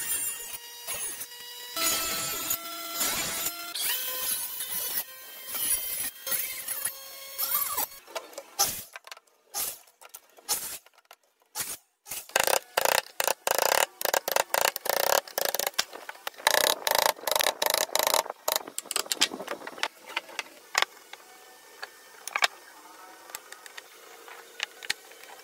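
Wood being worked with hand tools: rapid sawing or scraping strokes. They are densest about halfway through, after a short near-silent pause. Over the first several seconds, steady ringing tones shift in pitch in steps among the strokes.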